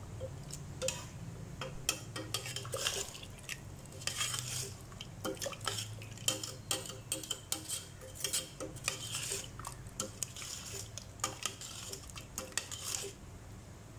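Metal ladle stirring a watery chicken curry inside a steel pressure cooker, scraping and clinking irregularly against the pot's sides and bottom. A steady low hum runs underneath.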